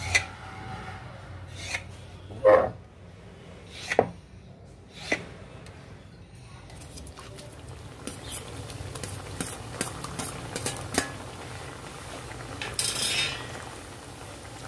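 About five sharp metal clinks with a short ring in the first five seconds, then, from about seven seconds in, the steady sizzle of shakarpara dough pieces deep-frying in hot oil, with small clicks and scrapes as a perforated metal slotted spoon stirs them.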